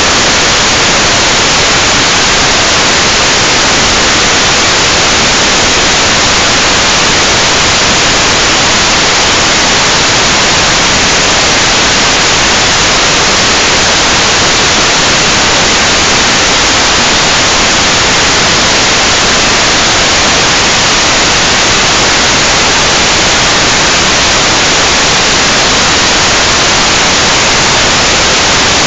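Loud, steady static hiss from an FPV video receiver's recording with no signal coming in.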